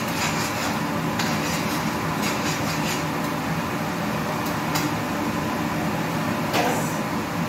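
Steady fan-like hum of kitchen background noise, with a few light clicks and clinks of cookware being handled at the counter.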